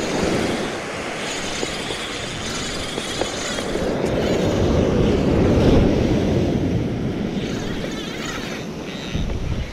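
Ocean surf breaking and washing up the sand, with wind rumbling on the microphone; the wash swells loudest about halfway through.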